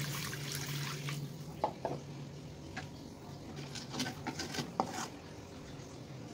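Water in a wok of sautéed vegetables, hissing briefly at first, then a spatula knocking and scraping against the wok a few times as the broth is stirred.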